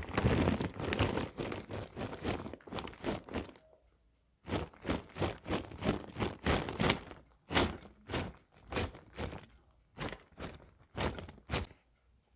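Shredded cheese being sprinkled by hand over eggplant slices in a glass baking dish: a quick series of short rustling bursts, with a pause of about a second roughly four seconds in.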